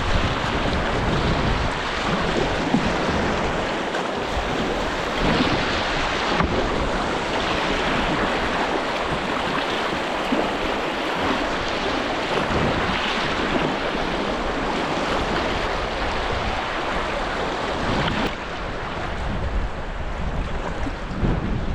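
Steady rushing of river water through a shallow rocky rapid, with wind buffeting the microphone.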